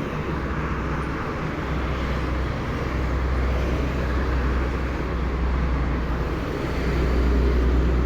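Whoosh high-speed train running along its track, a steady rumble and rushing noise blended with road traffic, growing louder near the end.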